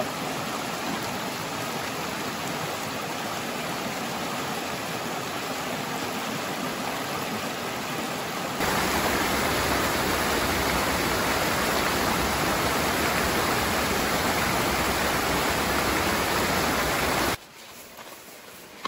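Jungle waterfall: a steady rush of falling water. It gets louder about halfway through and cuts off suddenly near the end.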